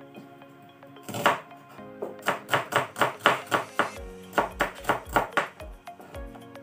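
Kitchen knife chopping an onion on a plastic cutting board: one chop about a second in, then a quick, steady run of chops, about three to four a second, over background music.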